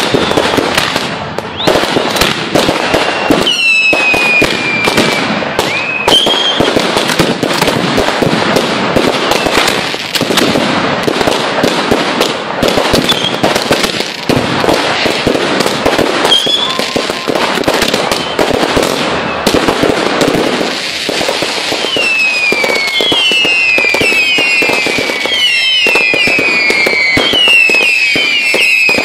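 Ground-launched fireworks going off in a continuous stream of rapid bangs and crackling. Over the last several seconds a string of shrill falling whistles joins in, each dropping in pitch over about a second and overlapping the next.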